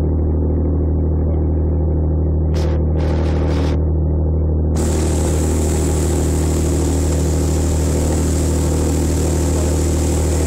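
Passenger ferry's engine running steadily with an even, low drone, heard from on board. About five seconds in, a loud hiss joins it and continues.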